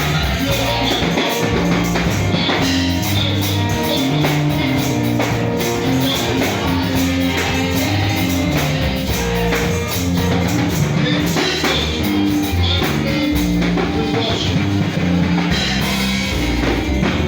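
Band music with a steady drum beat and a bass line moving between held notes.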